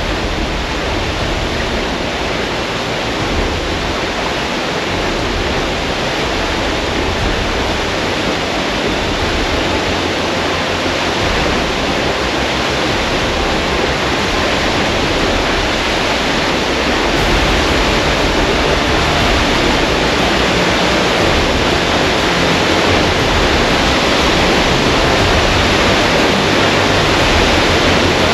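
Steady rushing water from the outlet of a turning Archimedes screw hydro turbine and a weir spilling into the channel behind it, growing slightly louder toward the end.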